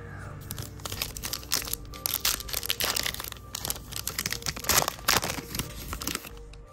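Foil trading-card pack wrapper crinkling and crackling irregularly as it is handled and torn open.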